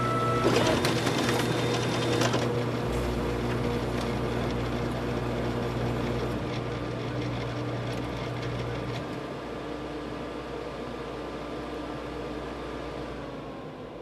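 Photocopier running: a busier mechanical clatter in the first couple of seconds, then a steady machine hum with a low drone that stops about nine seconds in, the sound growing quieter toward the end.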